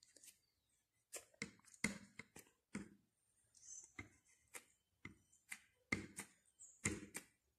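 Paint-loaded fork dabbed and pressed onto paper on a tabletop, making a string of faint, irregular taps and light scrapes, roughly two a second.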